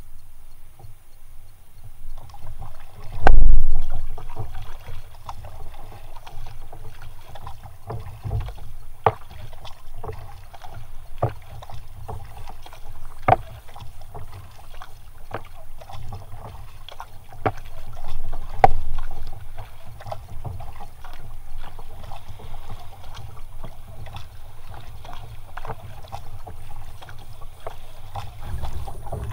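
Kayak being paddled with a double-bladed paddle: water splashing and dripping with each stroke and short sharp clicks about once a second, over a low wind rumble on the microphone. One loud low knock comes about three seconds in.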